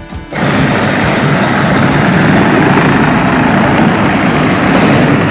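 A 12-volt Power Wheels Ford F-150 ride-on toy truck driving: its electric drive motors and plastic gearboxes run with the hard plastic wheels rolling on a concrete floor, a loud, steady rushing drone that starts about a third of a second in. It runs with plenty of power on a freshly replaced battery.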